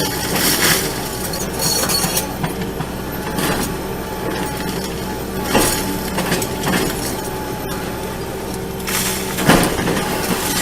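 Heavy machine's engine running steadily, with a few sharp cracks and crashes of material breaking.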